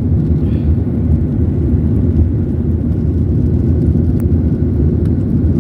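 Jet airliner in flight, heard from inside the passenger cabin: a steady low rumble of engine and air noise.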